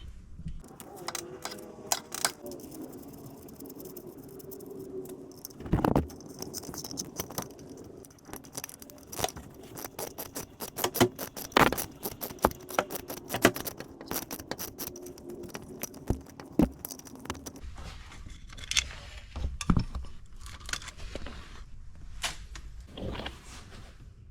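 Metal hand tools clicking, clinking and scraping on bolts and brackets while a part is unbolted to reach the transmission switches, with a run of rapid clicks about halfway through.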